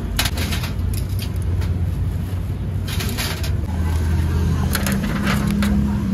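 Wire chicken hooks clinking and rattling against steel trays in irregular clusters as grilled chicken is handled, over a steady low engine hum that grows louder toward the end.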